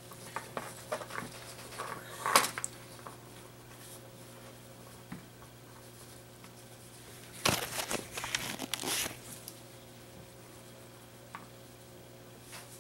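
Rustling and clicking handling noise as gloved hands move a small circuit board and its cable wires, with scattered knocks. The loudest knock comes about two seconds in, and a cluster of louder ones comes about halfway through. A faint steady hum runs underneath.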